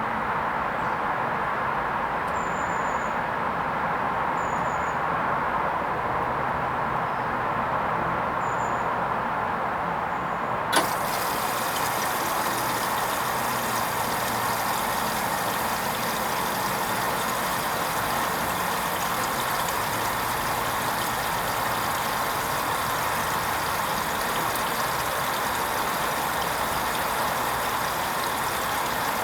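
Hoover Vision HVP16 washing machine running steadily on its wool rinse programme. A single sharp click comes about eleven seconds in, and a high hiss joins the running sound from then on.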